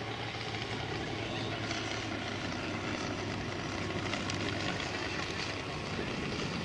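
Valach VM R5-420 five-cylinder radial engine of a half-scale model Klemm Kl 25 running steadily in flight, with propeller noise, as the plane flies overhead and away.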